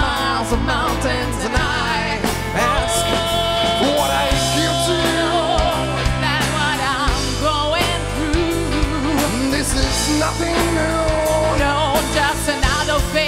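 Live rock band playing a song, with violin, electric guitar, keyboard and drums.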